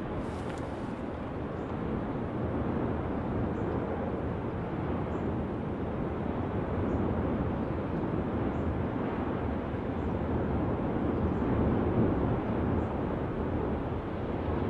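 Erupting volcanic fissure vent throwing up lava and gas: a steady low rushing noise that swells and eases slowly in loudness.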